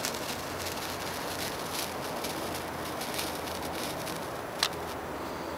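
Wooden-stick gold sparkler burning with a steady fizz and faint crackle, with one sharp pop a little past four and a half seconds in.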